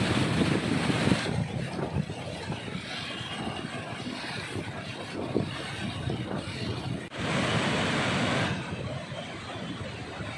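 Flood water rushing and churning as it is released through a river barrage's open gates, a steady wash of white-water noise with wind buffeting the microphone. It jumps louder for about a second at the start and again for about a second and a half around seven seconds in, cutting abruptly at each change.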